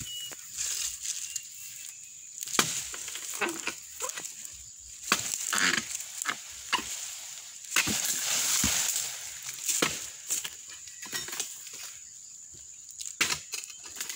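Pole-mounted harvesting chisel chopping into an oil palm's frond bases and bunch stalk: a run of sharp chops and knocks, with rustling of palm fronds, longest about two-thirds of the way through.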